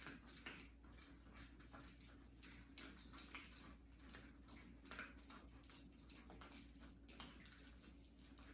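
Cats eating: faint, irregular clicking and smacking of chewing, several small clicks a second.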